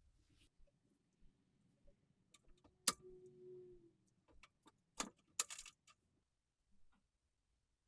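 Faint, light metallic clicks and clinks of oil lamp parts being handled: one sharp click about three seconds in, followed by a short faint ring, then a small cluster of clinks about two seconds later.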